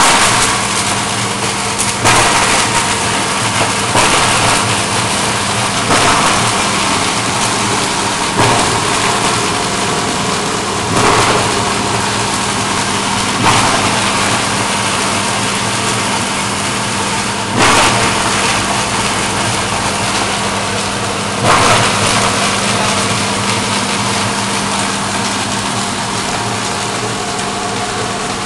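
Polyurethane foam shredder running: a steady electric-motor hum under a loud rushing of air and cutting. A sudden louder surge comes every two to four seconds as pieces of foam are chewed up, with no surges in the last several seconds.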